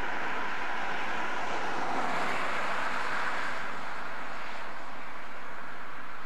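Steady rushing noise of a vehicle passing on the road.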